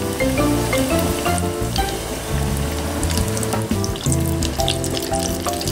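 Breaded curry croquettes deep-frying in oil heated to 180 °C: a steady bubbling sizzle with many small crackles, getting busier about three seconds in. Background music with a melody and bass plays over it.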